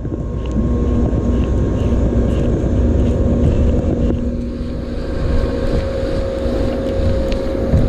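Steady low engine drone with wind buffeting the microphone.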